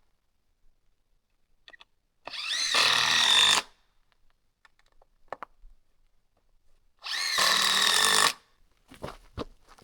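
A power drill runs in two bursts of about a second and a half each, a few seconds apart. Each time its pitch rises quickly as the motor spins up, then holds steady until it stops abruptly.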